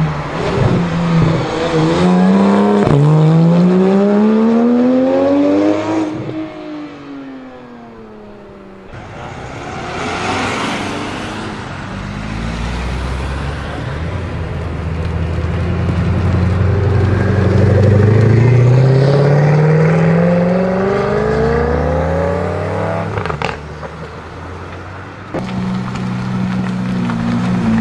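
Supercar engines accelerating hard in successive clips: a Porsche 911 revs up, shifts once, climbs again and then falls away; a Koenigsegg Agera pulls away with one long, steady rise in pitch; near the end another engine runs at a steady low note.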